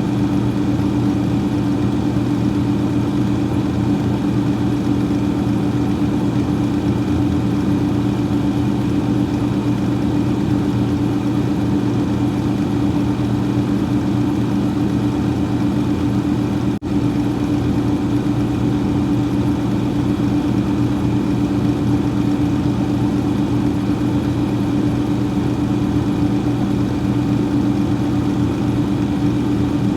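Freezer fan running: a steady, unchanging hum with a constant whirring hiss, briefly dipping for a moment a little past halfway.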